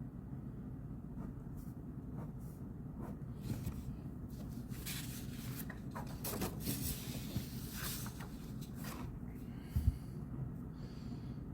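Pen scratching and paper rustling on a desk over a steady low room hum, with a soft thump near the end.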